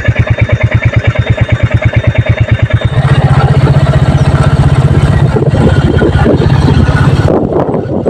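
Royal Enfield Classic's single-cylinder four-stroke engine idling with an even, rapid beat. About three seconds in it is opened up as the motorcycle pulls away, running steadily and more loudly under load.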